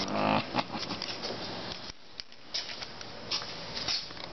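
Light, irregular clicks and taps of handling noise as a handheld infrared thermometer is carried across a workshop to a toolbox. A brief pitched hum opens the sound.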